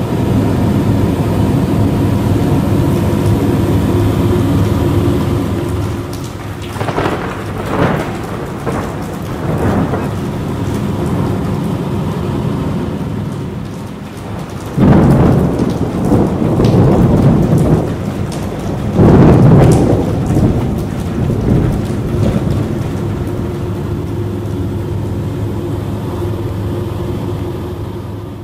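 Aerospool WT9 Dynamic light aircraft's engine droning steadily, heard inside the cockpit, while rain and cloud water rush and drum against the canopy. The rain noise swells in loud surges about a quarter of the way in, then more strongly about halfway and two-thirds of the way through.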